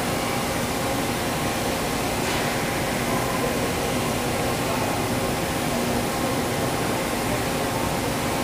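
Steady background hiss of a large factory hall, with a faint constant machine hum and no distinct events.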